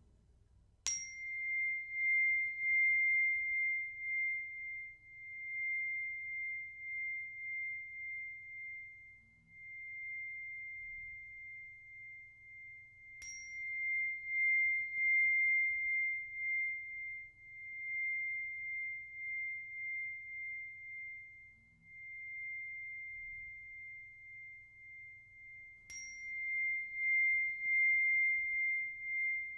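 Root chakra chime struck three times, about every twelve to thirteen seconds. Each strike rings one clear, high, pure tone that sustains and wavers in loudness as the chime is moved around the body, carrying on until the next strike.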